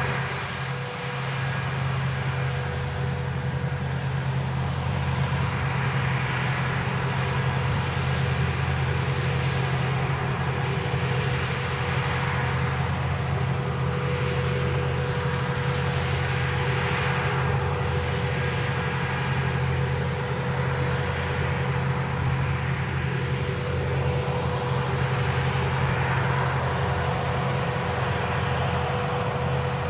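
Crickets trilling steadily in a high, gently pulsing chorus, over the steady low drone of Palesse GS12 combine harvesters working the field.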